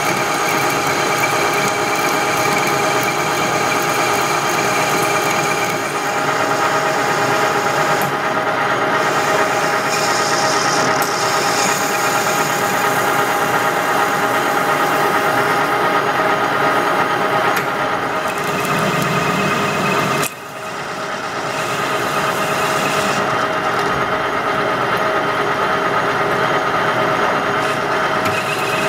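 Metal lathe running while a carbide insert tool turns a steel blank, a steady machine whine over the cutting noise. The sound dips sharply about 20 seconds in, then builds back up.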